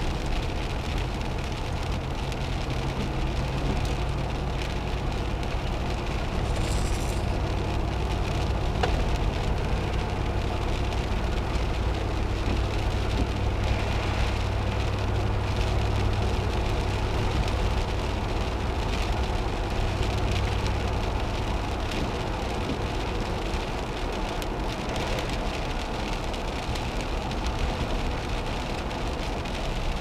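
Steady engine hum and tyre noise on wet pavement, heard from inside a moving vehicle, with rain.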